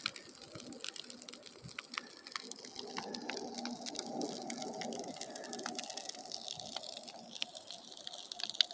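Burning pile of cut brush crackling, with many short sharp snaps and pops. A steadier rushing noise joins about three seconds in.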